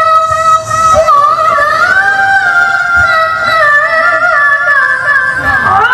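A woman reciting the Qur'an in melodic tilawah style into a microphone, holding long ornamented notes that waver and glide, with a quick swoop down and back up in pitch near the end.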